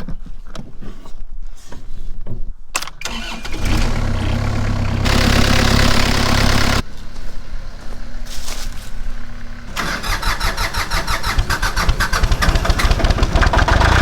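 A tractor engine being started, catching about three seconds in and then running, louder for a stretch around five to seven seconds, and settling into an even, rapid pulsing from about ten seconds in.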